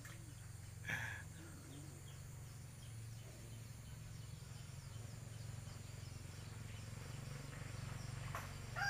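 Faint rural outdoor ambience: a steady low hum with insects buzzing thinly, a brief call about a second in, and a rooster starting to crow at the very end.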